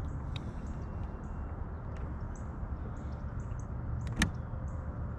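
Outdoor lake ambience from a small fishing boat: a steady low rumble, with faint high-pitched bird chirps scattered throughout. A single sharp click stands out about four seconds in.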